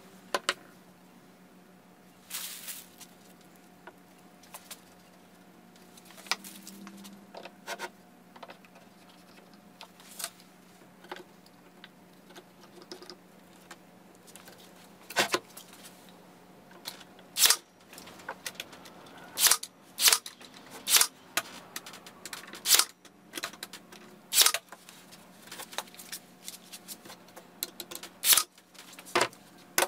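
Scattered clicks and knocks of one-handed bar clamps being set and squeezed tight on wooden rails, sparse at first and coming thick and fast in the second half, over a faint steady hum.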